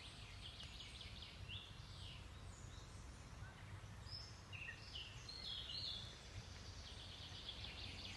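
Scattered short, high bird chirps and calls over a faint, steady low rumble of outdoor background noise.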